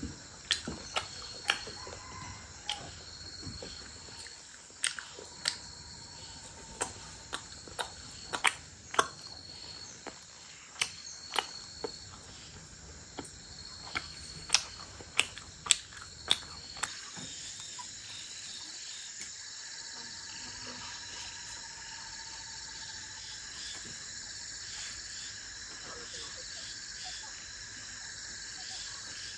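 Crickets and other insects chirping in a steady night chorus. Through the first half, irregular sharp clicks and taps sound over it, about one a second; about halfway through they stop and the insect chorus carries on, fuller and more even.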